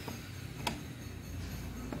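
A single light metallic click from a key working the quick-release lock of an aluminium motorcycle pannier box, over a low steady background hum.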